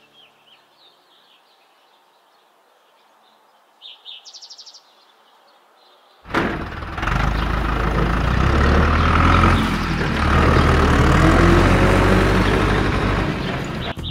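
Quiet background with a short bird chirp, then about six seconds in a loud, steady tractor engine running starts, as the toy tractor drives off loaded with bricks. The engine sound cuts off near the end.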